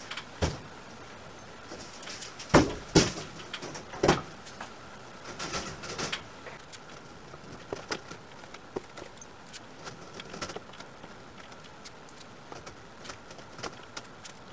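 Welded-wire rabbit cage being turned over and handled: several loud rattling knocks of the wire mesh in the first six seconds, then a run of lighter metallic clicks and taps as the wire and J-clips are worked.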